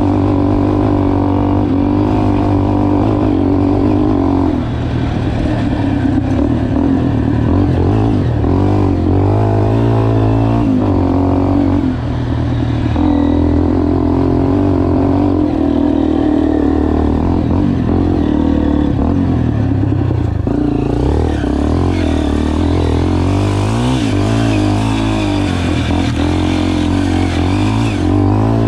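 Honda XRE 300's single-cylinder four-stroke engine running as the motorcycle is ridden off-road, its pitch rising and falling with the throttle. The engine note drops briefly twice, where the throttle is closed or a gear is changed.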